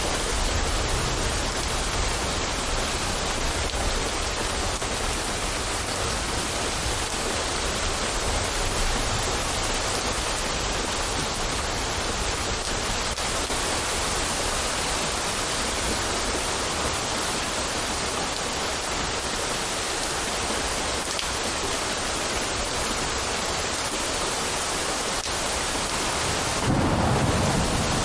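Steady downpour of rain with low rolling thunder; a louder rumble of thunder swells near the end.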